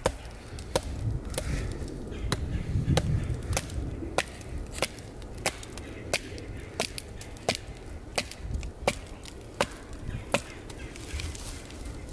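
A survival knife being batoned into a log of green wood to split it, its spine struck over and over with a wooden baton. The sharp knocks come in a steady rhythm, about three every two seconds.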